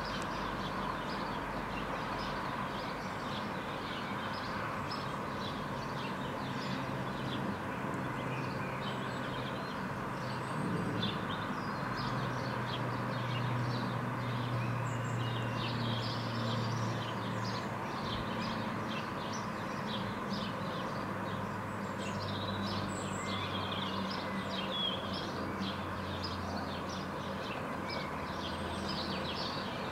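Urban garden ambience: a steady hum of distant traffic, with a low engine drone that comes in about a third of the way through and holds until near the end, and small birds chirping and singing throughout.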